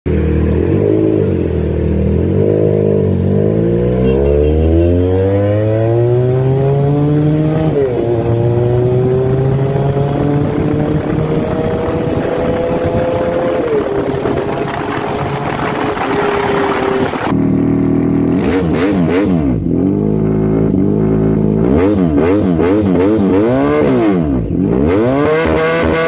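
Twin-cylinder engine of a Skyline Kawasaki Ninja 350cc replica motorcycle. It accelerates on the road, the pitch climbing and dropping twice at gear changes, then after a sudden cut, about two-thirds of the way in, it is revved in quick repeated throttle blips.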